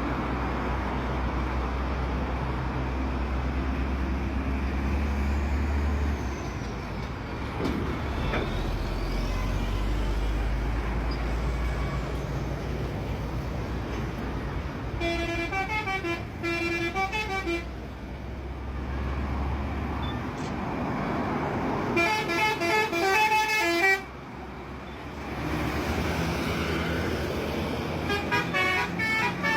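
A bus's telolet horn plays its melodic horn tune in three bursts of quick stepped notes: about halfway through, about three-quarters through, and again near the end. Beneath it a bus engine and traffic rumble steadily.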